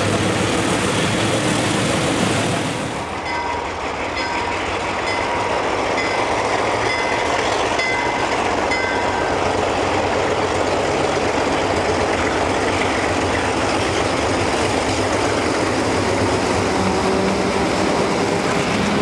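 Alco diesel freight locomotives passing close by, with the wheels clattering over the rail joints. About three seconds in the sound changes abruptly to a lead set of Alco diesels approaching and passing while working hard under throttle, their exhaust pouring black smoke.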